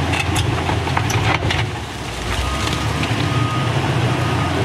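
Diesel engine of a wheel loader running under load as it lifts a bucket of landslide mud and rock, with a few knocks in the first second and a half and a thin steady high tone in the second half.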